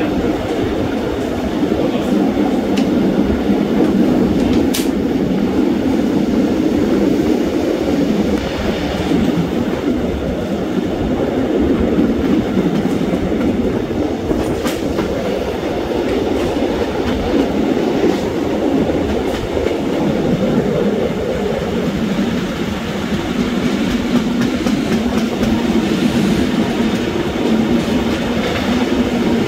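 Swiss Einheitswagen I (EW I) passenger coaches running along the track, heard from an open window: a steady rolling rumble of the wheels on the rails, with occasional sharp clicks as the wheels pass rail joints and switches. Later a steady low hum joins the rolling noise.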